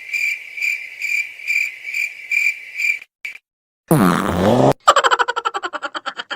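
Cricket chirping sound effect, a high chirp pulsing about twice a second, the meme cue for awkward silence; it stops about three seconds in. It is followed by a short, loud cartoon sound that swoops down and back up in pitch, then a fast buzzing trill near the end.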